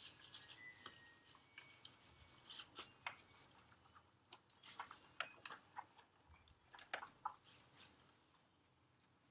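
Faint, irregular sticky clicks and crackles of clear-glue slime being pinched and kneaded by hand, the glue and activator setting into slime.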